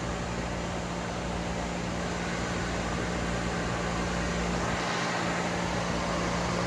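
One Dodge Intrepid electric radiator cooling fan running steadily on a relay-switched circuit, a whooshing rush of air with a constant hum, blowing pretty good.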